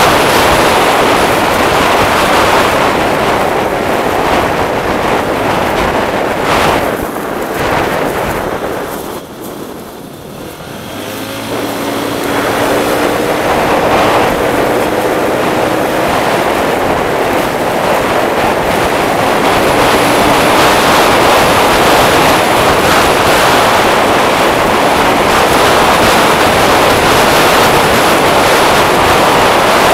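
Wind rushing over the microphone of a moving scooter, with the scooter's engine running underneath. About ten seconds in, the rush drops away briefly as the scooter slows. Then the engine note climbs as the scooter picks up speed again.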